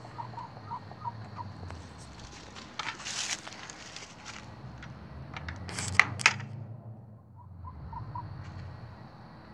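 Domestic hens clucking softly, a quick string of short notes at the start and again near the end. In between come rustling and two sharp clicks close together.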